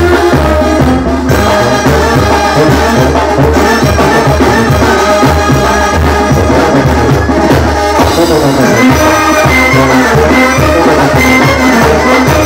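Mexican brass banda playing live, the trombone section sounding over a steady beat in the low end.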